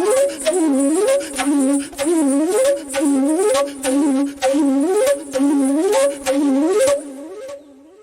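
Music for a kathak fusion dance: a short melodic figure rises and falls over and over, about once a second. It fades out near the end.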